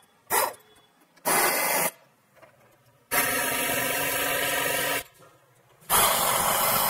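A hand-held pneumatic tool running in four bursts, the longest about two seconds, as it drives the bolts that hold a gear operator and adapter plate to a butterfly valve's mounting flange.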